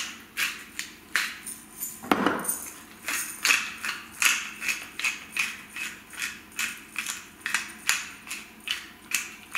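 Hand pepper mill grinding peppercorns, twisted in a steady rhythm of about three short grinding strokes a second.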